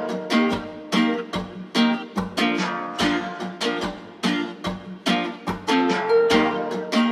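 Background music: strummed plucked strings playing a steady rhythmic pattern.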